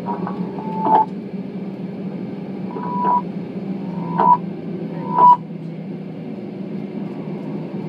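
Steady low hum inside an airliner cabin as the plane taxis, with four short high-pitched chirps spread over the first five seconds, the last two the loudest.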